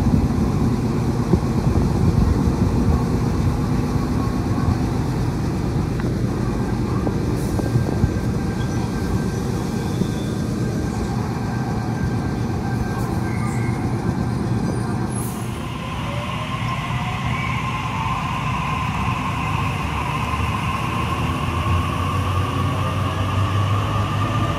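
A train running on the rails with a steady rumble. About halfway through, the sound changes and a whine sets in that rises in pitch over a few seconds.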